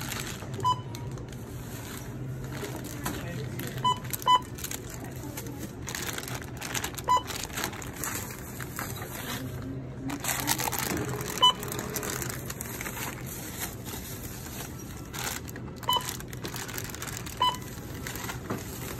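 Checkout barcode scanner giving short single-tone beeps every few seconds, seven in all, as bags of shredded cheese are scanned, with plastic packaging crinkling between beeps.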